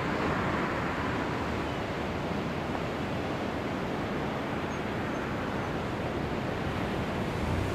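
Steady rush of ocean surf with wind.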